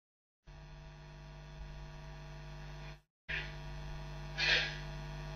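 Steady electrical hum in the recording, cutting out briefly about three seconds in, with a short breath near the middle.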